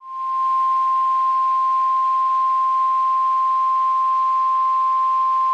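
NOAA Weather Radio 1050 Hz warning alarm tone: one steady, unbroken high beep over light radio hiss, sounded as part of the weekly test of the weather radio tone alert system.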